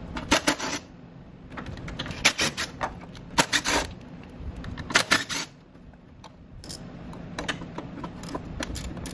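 Socket ratchet clicking in four short runs of rapid clicks as bolts are loosened, followed by a few scattered clicks of metal tools.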